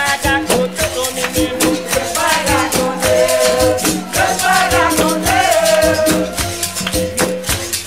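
Capoeira roda music with a steady percussive pulse and a shaker rattle, clapping, and singing voices that swell about two seconds in and again after four.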